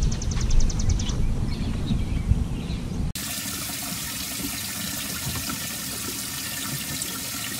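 Wind rumbling on the microphone, with a quick run of fine clicks during the first second. About three seconds in it cuts suddenly to the steady hiss and splash of a boat's live well, its aerator pouring water in over the caught crappie.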